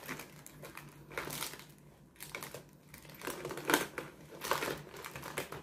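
Rustling and a handful of light clicks of small makeup items being handled, as lipsticks are rummaged through to pick a colour.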